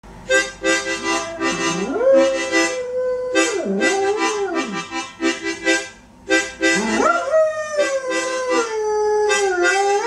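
A dog howling along to music: long howls that slide up, hold, and dip, over a rhythmic chord accompaniment. Toward the end the howl slowly slides downward.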